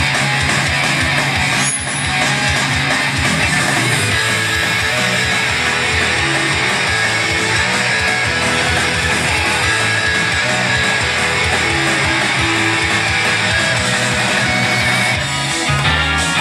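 Loud guitar-driven rock backing track, electric guitar strumming over a steady drum beat, played through outdoor PA speakers in an instrumental passage.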